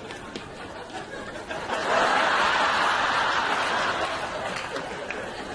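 Studio audience laughing: the laughter swells up about two seconds in, holds, then dies away.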